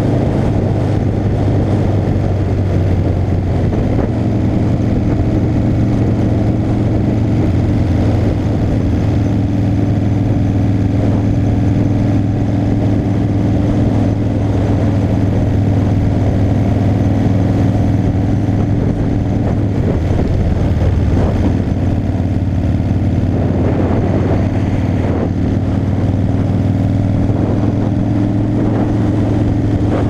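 Motorcycle engine running steadily at cruising speed, heard from the bike carrying the camera, a constant low drone.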